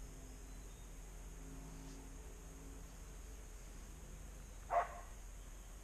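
A dog gives a single short bark about five seconds in, over a faint steady outdoor hiss.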